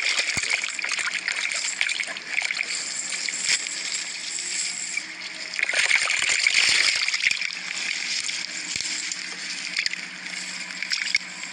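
Water splashing and sloshing, uneven with many small splashes, swelling louder about six seconds in.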